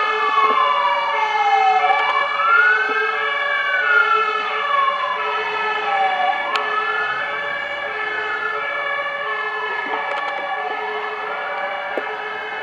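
Several emergency-vehicle sirens on passing fire engines sound at once. One slow wail rises and falls about every four seconds over steadier, higher siren tones.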